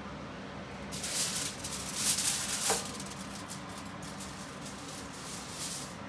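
Aluminium foil crinkling and crackling as a sheet of it is pulled off and crumpled by hand, loudest for about two seconds from about a second in, then in smaller crackles.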